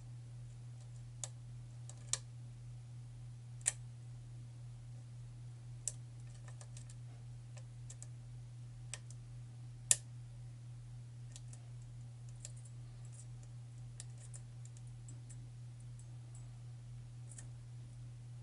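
Sparse, faint metallic clicks and ticks of a hook pick and tension wrench working the pins inside a pin-tumbler challenge lock with a tight paracentric keyway, with a sharper click about ten seconds in. A steady low hum runs underneath.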